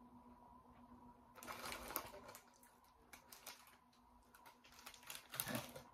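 Faint crinkling and crackling of a Cheetos snack bag as a hand rummages inside it for pieces, in three short bouts.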